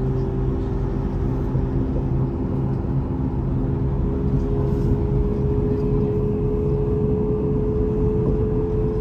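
A Vy electric passenger train running: a steady low rumble of the ride with a humming whine that rises slightly in pitch over the second half.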